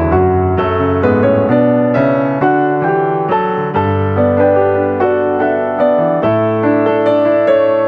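Background piano music: a steady run of struck notes over slowly changing bass notes.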